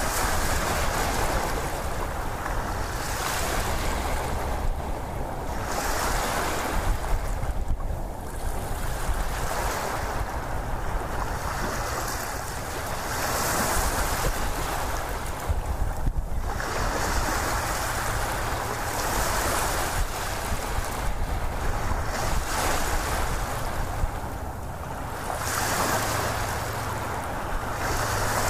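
Ocean waves breaking and washing back: a continuous rush of noise that swells and fades every few seconds.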